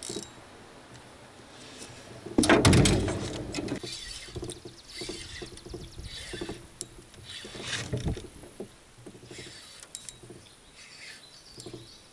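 Spinning reel being cranked and handled in short, irregular spells while a hooked bass is fought from a boat. About two and a half seconds in there is one loud burst of noise lasting about a second.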